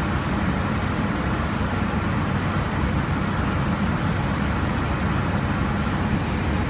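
Steady, even rush of airflow and engine noise inside an airliner's flight deck in cruise.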